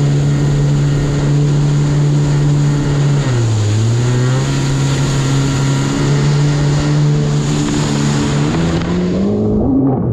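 Yamaha VXR 1.8 WaveRunner's four-cylinder four-stroke engine running at speed on the water with a steady pitch. The pitch dips briefly a few seconds in and climbs again near the end as the craft leans into a turn. Rushing spray hisses throughout.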